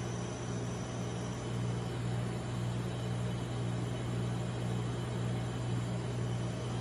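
Refrigeration compressor of a rolled-ice-cream cold-plate machine running with a steady low hum and a faint hiss.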